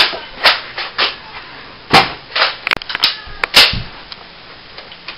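Nerf foam-dart blasters being fired and primed: a quick run of sharp plastic pops and clacks, the loudest about two seconds and three and a half seconds in, stopping about four seconds in.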